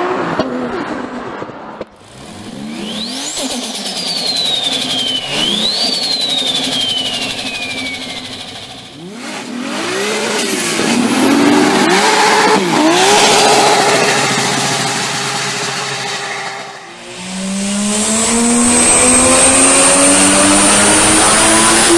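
Turbocharged car engines in a run of short clips: revs rising and falling in repeated throttle blips, with a high whistle falling in pitch in the first clip, then a car accelerating hard with a steady high whine over the climbing engine note near the end.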